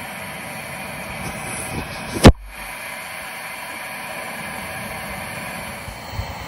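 Hot water pouring from an enamel kettle into a drip-coffee filter bag, a steady trickling hiss. One sharp click a little over two seconds in.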